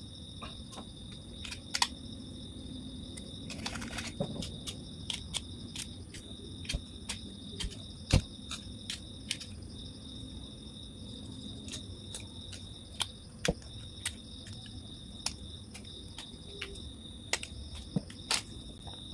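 Irregular small clicks and short scratches as the enamel is scraped off the ends of the copper magnet wire on a motorcycle stator coil, baring the copper so the wires can be joined. A steady chirring of crickets runs underneath.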